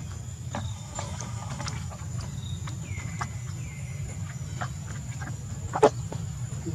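Baby macaque sucking milk from a small carton: scattered soft clicks and smacks, two short falling squeaks about three seconds in, and a sharper click just before the end, over a steady high tone.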